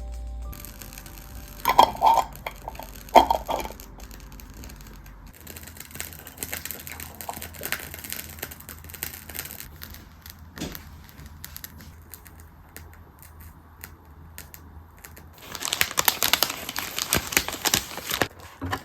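Close handling sounds: two sharp knocks about two seconds in, scattered small clicks, and a stretch of crinkling and tearing near the end, like packaging being torn open.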